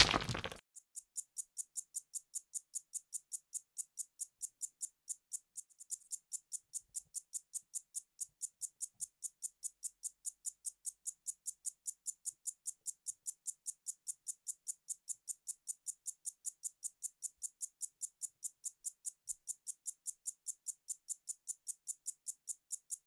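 A sharp knock, then rapid, even ticking at about four ticks a second, high and dry.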